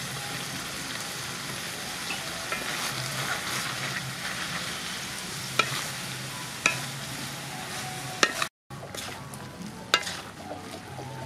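Pig intestines and pickled mustard greens sizzling in a large wok, stirred with a wooden spatula that knocks sharply against the pan four or five times. The sound drops out for a moment just past the middle.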